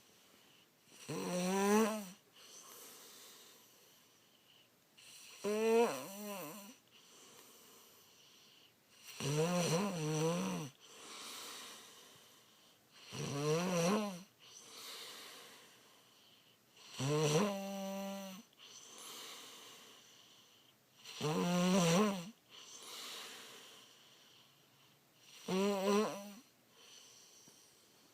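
A girl snoring in a slow, regular rhythm: seven loud snores about four seconds apart, each a low buzzing tone, each followed by a softer breath.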